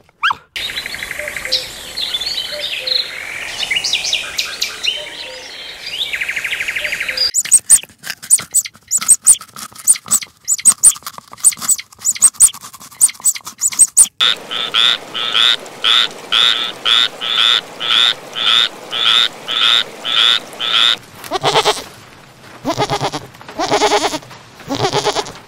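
A string of animal sounds. First a dog eating from a bowl, then sharp chewing clicks from a rabbit nibbling grass, then a steady run of short repeated calls, about two a second. Near the end a goat bleats several times.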